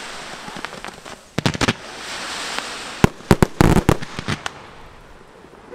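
Professional aerial fireworks going off: a fading hiss of burning stars at the start, then sharp shell bursts in clusters, a few about a second and a half in and a dense rapid run from about three to four and a half seconds.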